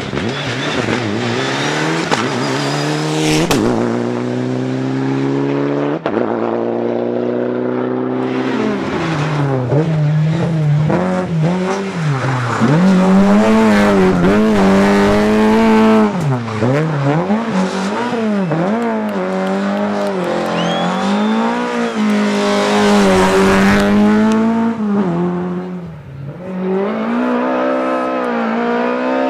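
Rally car engine revving hard, its pitch climbing and dropping again and again as it accelerates, shifts and lifts off through the stage, with a brief dip in loudness near the end.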